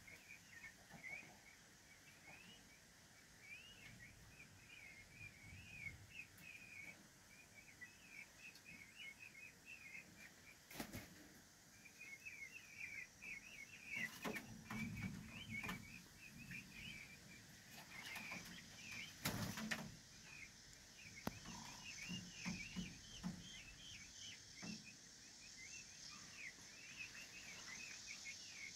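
Faint, continuous high peeping of chicks, many quick chirps overlapping, with a few rustles and wing-flaps partway through.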